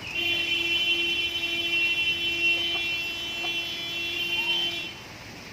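A steady, high buzzing tone, like a buzzer or alarm, sounding for about five seconds and then stopping.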